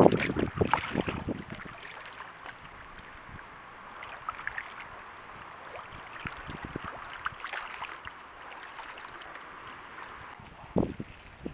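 Water splashing and lapping as Eurasian beavers swim, with a cluster of louder splashes in the first second or so and another splash near the end.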